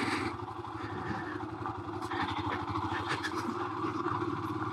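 Royal Enfield Himalayan's 411 cc single-cylinder engine running steadily at low revs in second gear while the bike climbs a dirt track.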